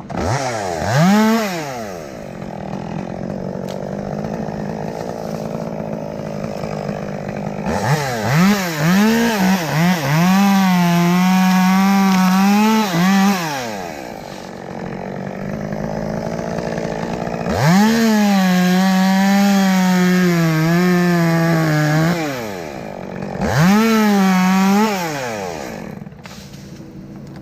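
Two-stroke chainsaw cutting into a red oak limb. It is blipped up and down a few times and held at full throttle twice, for about three seconds and then about four and a half seconds.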